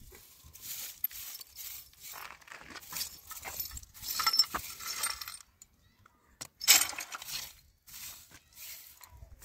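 A small metal scraper rasping over a concrete path in a run of short strokes, with gritty scratching and light clinks. The loudest stroke comes about two-thirds of the way through.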